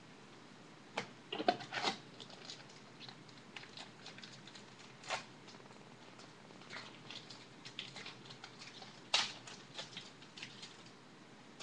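Football trading cards and their pack wrappers being handled: scattered crinkles and light clicks, busiest about one to two seconds in and again around nine seconds in.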